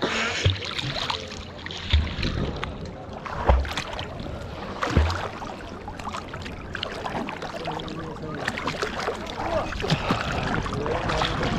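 Water sloshing and splashing close to the surface, with four low thumps about a second and a half apart in the first half. Faint voices come in later.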